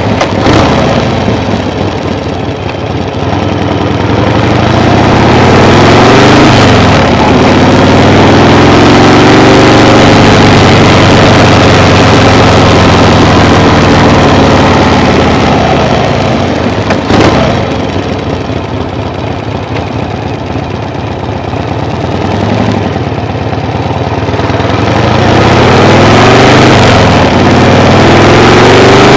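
A vehicle engine running loudly, its pitch climbing and dropping several times as it speeds up and eases off, with abrupt changes about a quarter of the way in and again a little past halfway.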